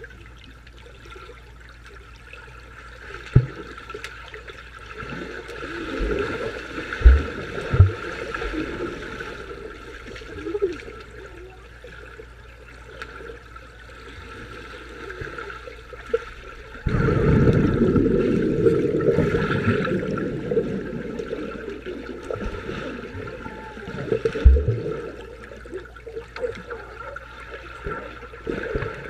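Muffled underwater water noise picked up by a submerged camera: a steady rush of moving water and bubbles with a few dull low thumps. More than halfway through, a much louder surge of rushing water starts suddenly and then slowly fades.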